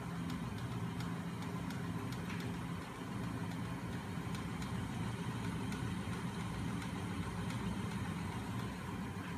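Homemade magnet machine running: a small DC starter motor on a 7-volt bench supply turns its magnet crankshaft and flywheel, with the other DC motors spinning as generators. It makes a steady low mechanical hum with faint ticking.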